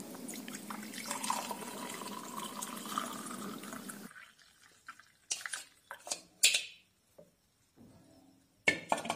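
Hot ginger milk tea poured through a plastic tea strainer into a glass tumbler: a steady splashing trickle for about four seconds that stops abruptly. Then a few sharp knocks and clatters, the loudest about six seconds in.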